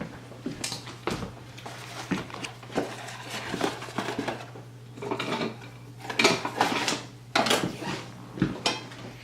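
Dishes and food containers clattering and knocking irregularly as they are handled and cleared away, with several louder clanks about two-thirds of the way through, over a steady low hum.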